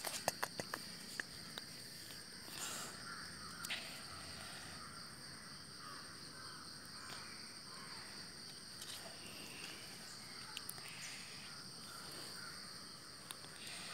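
Steady high-pitched insect chorus, typical of crickets, with a few sharp clicks near the start and crows cawing once or twice.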